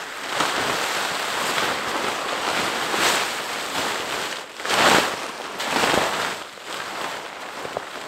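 Tent fabric rustling and flapping as the FireHiking Fireyurt hot tent is bunched up and stuffed for packing. It comes in rushing swells, the loudest about five seconds in.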